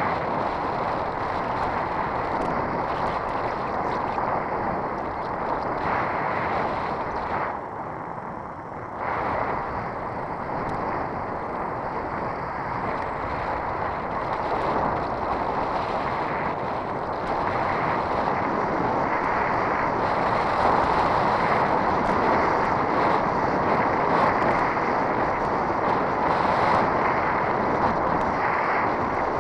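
Steady rush of wind and tyre noise picked up by a bicycle-mounted camera while riding along a road, dipping briefly about eight seconds in.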